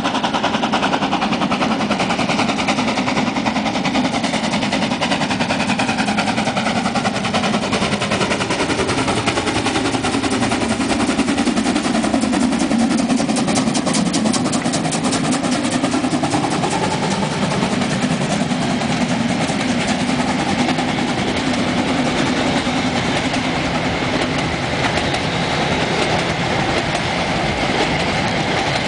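Metre-gauge steam locomotive chuffing rapidly as it approaches and passes close by about halfway through, the fast exhaust beats loudest as it goes past. Its passenger coaches then roll by.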